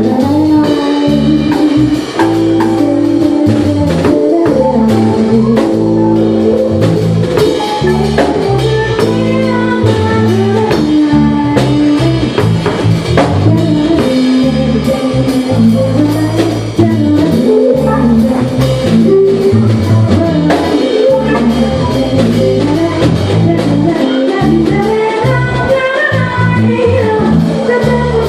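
Live jazz fusion band playing a number with a drum kit, the drums keeping a steady beat under a moving low line and higher melody.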